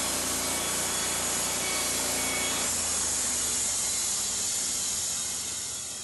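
Gas-engine band sawmill cutting lengthwise through a log: the band blade rasps steadily through the wood over the engine running. The sound shifts about three seconds in and fades near the end.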